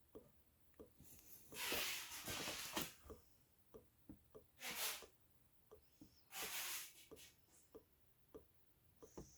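Three short hisses of air at the top of a vacuum coffee maker as its top fitting is worked, among light clicks of handling; the brewer is vacuum-locked and not yet draining.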